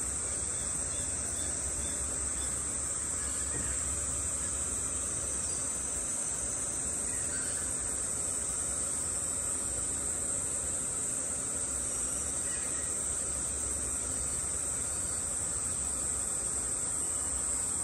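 Steady high-pitched, insect-like whine with a low hum underneath, unchanging throughout.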